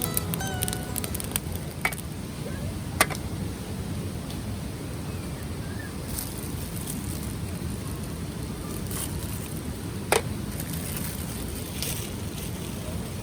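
Wood campfire crackling, with a few sharp, widely spaced pops over a steady low rush.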